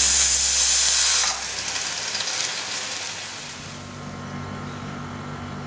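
Stovetop pressure cooker whistling: steam hissing loudly out from under the weight on the lid, then dying away after about a second. This is the cooker at full pressure venting as one of its whistles while the rice cooks.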